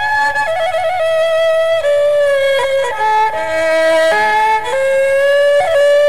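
Tro Khmer, the Cambodian three-string spike fiddle, bowing a slow melody. The line slides between notes and has quick trills, and for about a second in the middle a lower note sounds with it.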